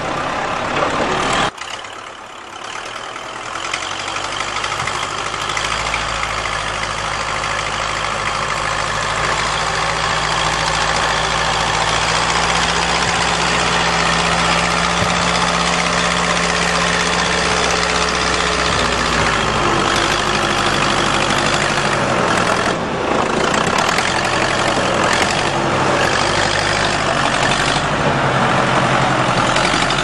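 1974 Case backhoe's diesel engine running, holding a steady pitch for a long stretch. The revs drop and pick up again about twenty seconds in. There is a sudden brief drop in level about a second and a half in.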